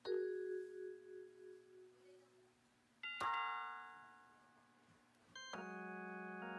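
Electronic keyboard notes as a toddler presses keys. One note rings out at the start and fades with a pulsing wobble, and another ringing note sounds about three seconds in. Near the end a chord of several notes is held on steadily.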